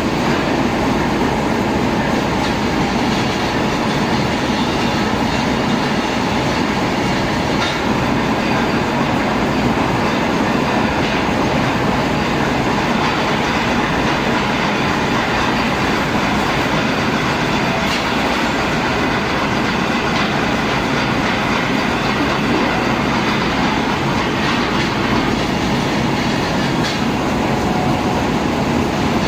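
Machine tool running steadily while machining a steel shaft, a continuous mechanical noise with a rattling texture.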